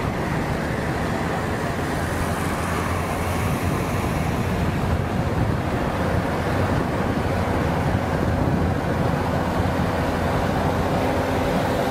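Steady engine and road noise inside a moving vehicle's cabin at highway speed, a constant low hum with a few faint steady tones.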